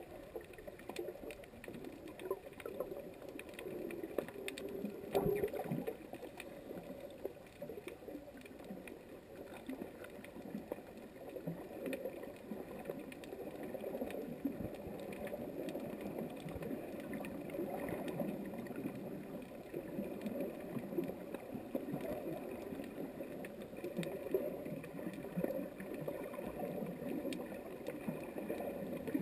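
Underwater ambience heard through a GoPro's waterproof housing: a steady, muffled churning of water with scattered faint clicks, one sharper click about five seconds in.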